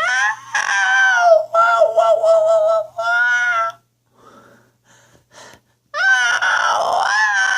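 High-pitched whining cries, four drawn-out wails of about a second each, then a short lull with a few faint clicks, and another long wail near the end.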